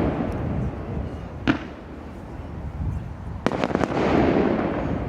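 Fireworks display going off: a single sharp bang about one and a half seconds in, then a quick cluster of several bangs about three and a half seconds in. Each burst is followed by a loud wash of sound that fades away.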